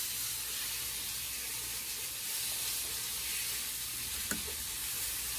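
Steady sizzle of food frying in a pan. About four seconds in, a single light clink of a ceramic soup spoon against the bowl.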